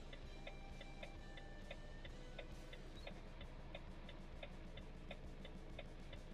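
Quiet clock-like ticking, about three ticks a second, with faint held tones behind it: a ticking background music track.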